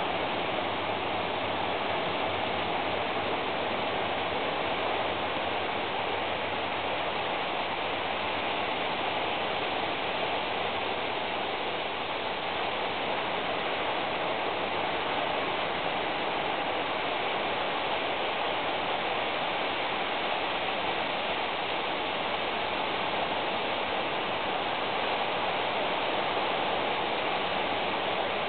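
Steady, even hiss of noise with no separate sounds in it, holding the same level throughout.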